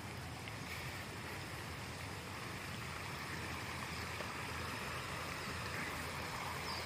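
Steady rushing of a small stream's flowing water.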